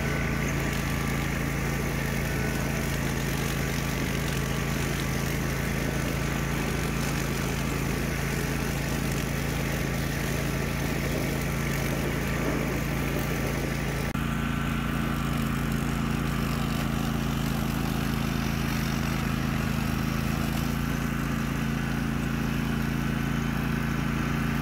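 A towed Swisher Brush King rough-cut mower's gasoline engine and a subcompact tractor's Yanmar diesel running steadily together while mowing tall grass. The engine note shifts slightly about halfway through.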